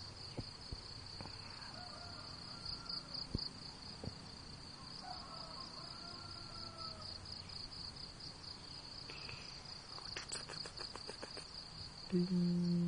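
Insects chirring in a steady, rapidly pulsing high-pitched drone, with a few faint bird calls. A quick run of clicks comes about ten seconds in, and a loud steady low tone starts just before the end.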